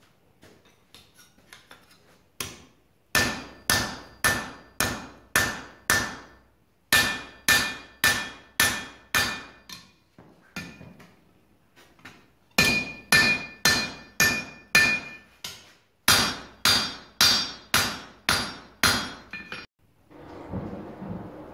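Hand hammer striking hot iron on a steel anvil in four runs of about two blows a second, with short pauses between, each blow leaving a bright ringing tone from the anvil. Near the end, a rush of air from the forge bellows being pumped.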